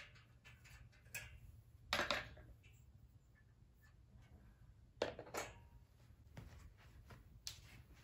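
A few short clinks and knocks as a metal wire lantern is set down on a wooden floor, the loudest about two seconds in and another about five seconds in, over a low steady hum.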